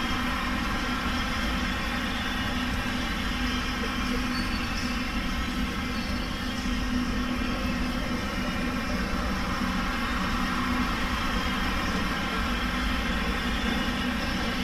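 Steady, unchanging hum and rush of background noise in a large sports hall, with a low steady tone running through it.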